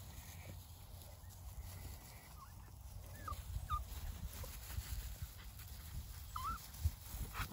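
Miniature Australian Shepherd puppies giving a few short, wavering squeaky whines as they play, over a low rumble.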